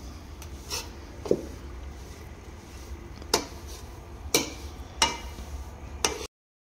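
A metal utensil scraping and clinking against a heavy-bottomed metal pan as besan roasting in ghee is stirred, with about six sharp knocks at irregular intervals over a low steady rumble. The sound cuts out briefly near the end.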